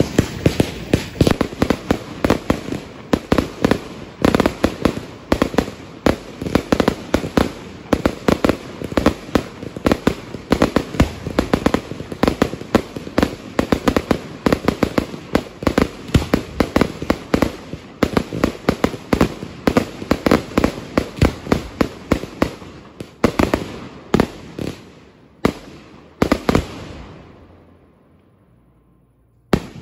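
Fireworks going off in a dense, rapid run of sharp bangs, several a second. Near the end the bangs thin out and die away, and one more bang comes just at the end.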